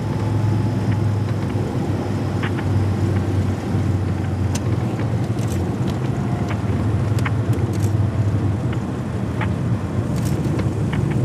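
Cabin noise of a Piper single-engine piston plane rolling out on the runway after landing: a steady engine and propeller drone with a low hum. A few light clicks come through now and then.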